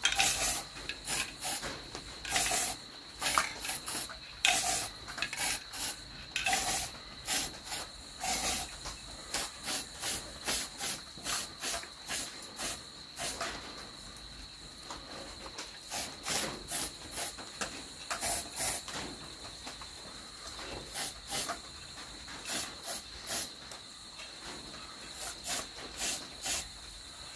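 Aerosol spray can of hammered paint-and-primer hissing in many short squirts onto bare sheet metal, in clusters with brief pauses.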